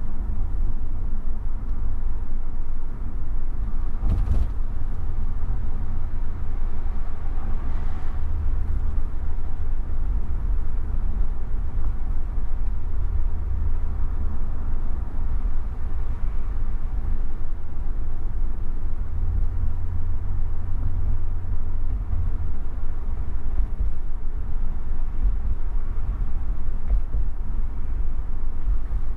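Steady low road and engine rumble of a car driving, picked up by a dashcam inside the car, with a short knock about four seconds in.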